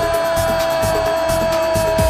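Electronic dance music with a steady kick-drum beat, about two beats a second, under a long held synth note.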